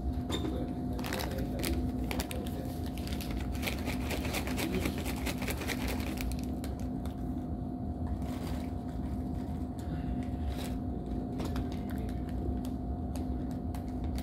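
A plastic snack bag being handled and its snack eaten: irregular crinkling, rustling and crunchy clicks over a steady low hum.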